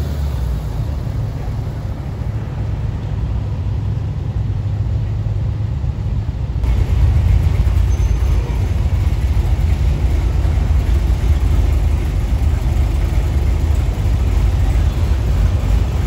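Car engines running as show cars roll in, a steady low rumble that gets louder about two-thirds of a second into the second half of the clip, a little before halfway.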